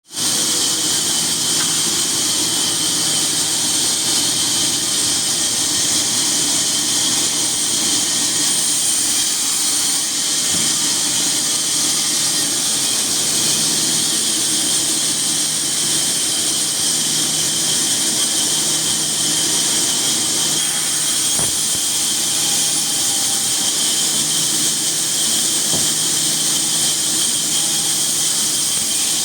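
Sawmill saw running steadily: a loud, even high-pitched hiss over a low hum, with no breaks.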